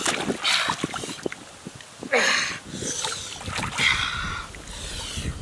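Hands splashing and sloshing in shallow muddy water while feeling for frogs, with a sharper splash about two seconds in.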